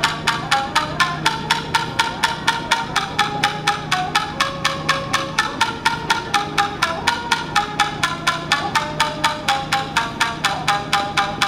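Tsugaru shamisen played fast, the plectrum striking in an even run of about five sharp clicks a second under a melody of short plucked notes, with a steady low hum underneath.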